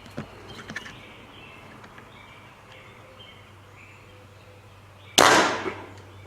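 Faint bird chirps over a steady low background, then about five seconds in a sudden loud rush of noise that dies away over about a second.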